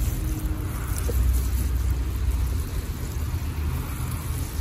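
Water spraying from a Gardena hose spray nozzle onto gravelly mineral bonsai substrate, a steady hiss and patter of spray on grit, over a steady low rumble.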